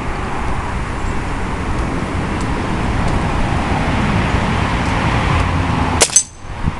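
Steady rumbling background noise, then about six seconds in a single sharp shot from a Benjamin Prowler .22 break-barrel air rifle, followed a moment later by a second sharp crack.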